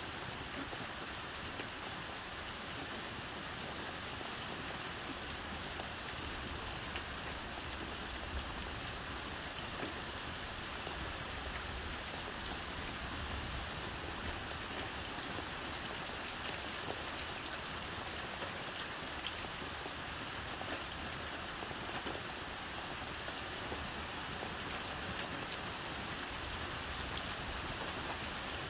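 Heavy rain falling steadily on a camper's roof, heard from inside: a dense, even hiss of rain with scattered single drops standing out.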